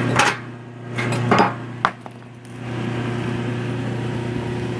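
Motor-driven chip feeder of a homemade woodchip furnace running with a steady hum, with three sharp metallic clinks in the first two seconds.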